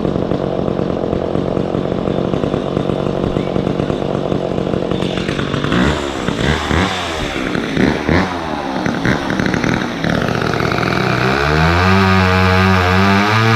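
McCulloch Mac 10-10 two-stroke chainsaw with a 16-inch bar running steadily, then revving up and down about halfway in as it bucks a tree trunk into firewood-size pieces. Distorted electric-guitar music comes in near the end.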